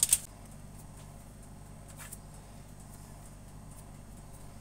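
Fan oven heating on its fan setting: a low steady hum, with one faint tap about two seconds in.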